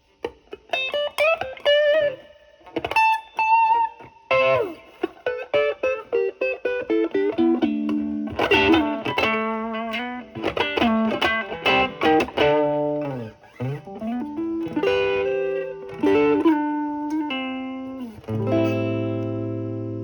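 Electric guitar (Fender Stratocaster) played through an MXR Duke of Tone overdrive pedal into a Marshall Valvestate amp's overdriven channel. It plays single-note lead phrases with string bends and quick picked runs. Near the end it lands on a chord that rings out and slowly fades.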